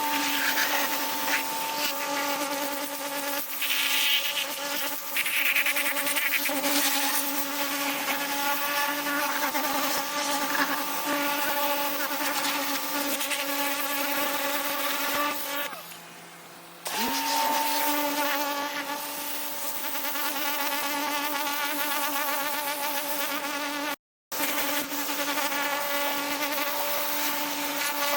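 Pressure washer running with a steady high buzzing whine over the hiss of the water spray. About sixteen seconds in it goes quieter for a moment, then the motor spins back up and runs on.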